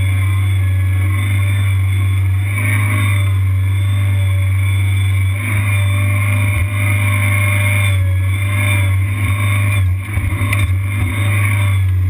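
Engine of a tracked Kanga mini skid steer running steadily as the machine works, with a few short clunks about ten seconds in.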